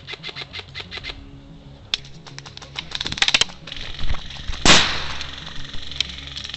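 Airsoft guns firing rapid strings of sharp shots over background music, with the loudest single bang about four and a half seconds in.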